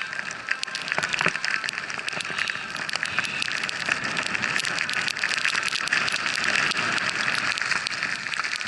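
Skis running through deep fresh powder snow: a steady hiss laced with many small crackles and ticks.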